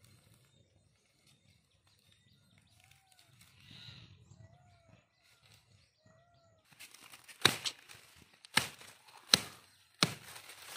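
Faint outdoor quiet with a few soft chirps, then rustling and four sharp cracks or knocks about a second apart in the last few seconds.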